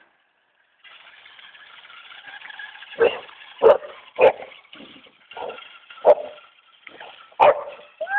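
A young Boxer barks sharply several times at a remote-control toy truck, starting about three seconds in. Under the barks the toy truck's small electric motor whines steadily, starting about a second in.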